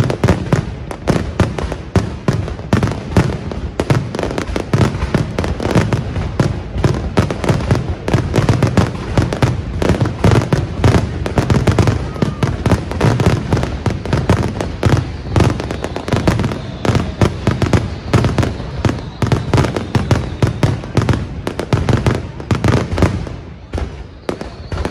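Fireworks display: aerial shells launching and bursting in rapid, overlapping bangs, thinning out briefly near the end.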